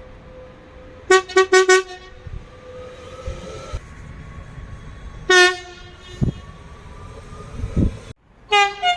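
Train horn sounding four short toots in quick succession, then a single longer toot a few seconds later, and two more short toots near the end, over a steady background hum.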